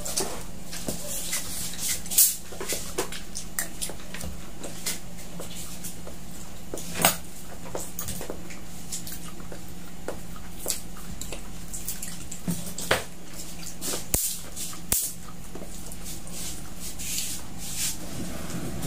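Eating sounds: fried chicken pulled apart by hand and chewed, with scattered short clicks and taps of food and dishes over a steady low hum.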